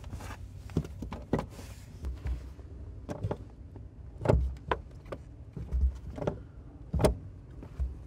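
Clutch pedal of a 1987 Porsche 911 being worked down and back up, giving a series of irregular knocks and clunks as it stops against a wooden pedal board fitted to limit its travel, over a low steady hum.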